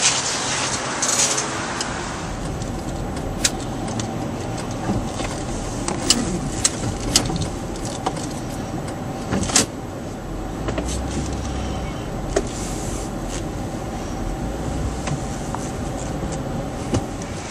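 Steady motor-vehicle noise with a low rumble, broken by scattered short clicks and knocks.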